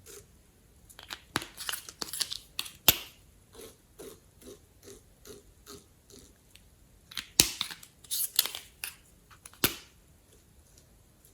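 Glossy slime being squished and kneaded: sticky clicks and squelches, with a few loud sharp pops and, in the middle, a run of soft even squishes about three a second.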